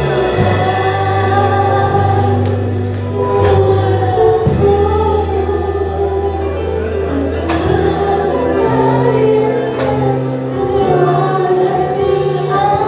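Christian worship song: a group of voices singing together over sustained instrumental accompaniment.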